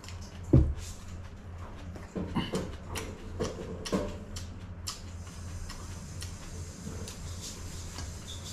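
Eating sounds: a thump about half a second in as a drinking glass is set down on the table, then chewing with a run of short clicks and crunches, over a steady low hum.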